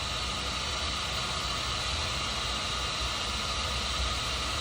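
Steady background noise: an even hiss over a low rumble, unchanging throughout.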